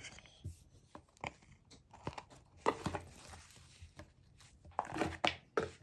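Packaging being handled: a clear plastic bag crinkling and a canvas pouch rustling, in short irregular crackles, the loudest about halfway through and near the end.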